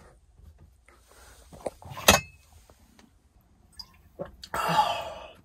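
A man drinking cold water from a glass, with quiet swallowing sounds. A sharp clink comes about two seconds in, and a breathy exhale comes near the end.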